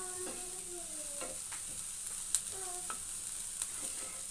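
Chopped onion and chana dal frying in oil in a nonstick pan, a steady sizzle as a wooden spatula stirs them, with scattered scraping clicks; the onion is being sautéed until soft.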